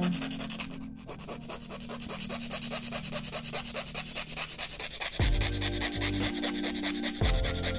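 Nail file rubbing quickly back and forth across the edge of a plastic press-on nail tip, shaping it. It makes an even, rapid scratching of several strokes a second.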